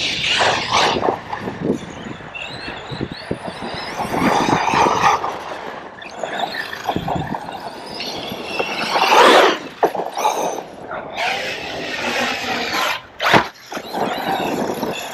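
Arrma Kraton 6S electric RC monster truck being driven hard. Its motor whines in surges that rise and fall in pitch, over wind noise on the microphone.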